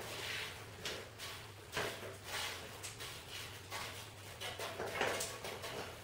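An old, worn paint brush sweeping ash off a metal stove ash pan into a bucket: a run of short, irregular brush strokes, the loudest about five seconds in.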